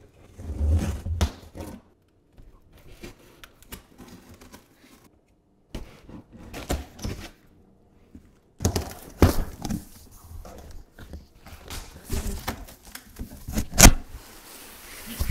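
A knife slitting the packing tape on a large cardboard box, then the cardboard flaps being pulled and folded open, with rustling, scraping and knocks. The loudest is a single sharp knock near the end.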